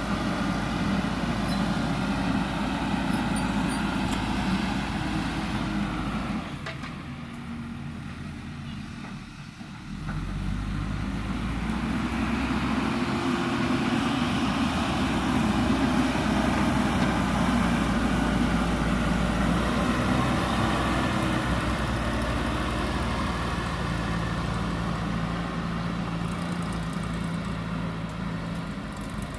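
JCB backhoe loader's diesel engine running under load, dropping quieter for a few seconds about six seconds in, then picking up again about ten seconds in.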